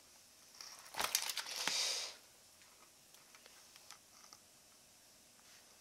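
Metal tongs setting a sauce-coated fried chicken drumstick onto a wooden board: a knock about a second in, then about a second of sticky rustling, followed by faint small clicks.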